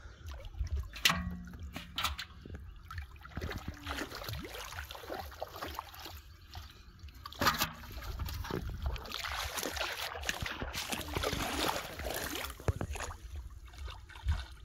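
Shallow stream water splashing and sloshing as a child wades and grabs fish by hand, with a few sharp knocks about a second in and again midway. The splashing is heaviest in the second half.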